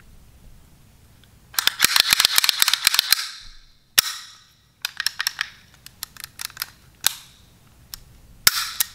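A Makarov pistol's steel mechanism being worked by hand, giving sharp metallic clicks and clacks. A quick flurry of clicks comes first, then a single sharp clack about four seconds in, then a run of lighter clicks, and another sharp clack near the end.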